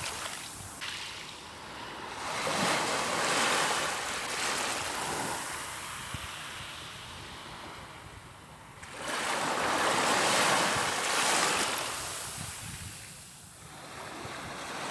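Small waves washing up onto a sandy beach, the surf swelling and falling away twice.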